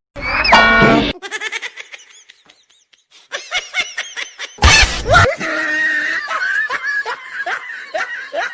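Edited sound effects: a short loud tone falling in pitch, then rapid giggling laughter, a sudden loud hit about halfway in, and more laughing.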